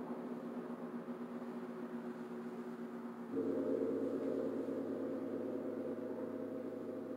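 Gongs ringing with a sustained, layered hum. About three seconds in, a large gong is struck with a mallet, and a stronger set of deep tones swells in and rings on.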